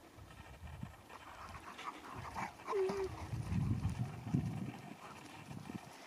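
Dogs panting and breathing hard as they play, in irregular bursts, with one short whine a little under three seconds in.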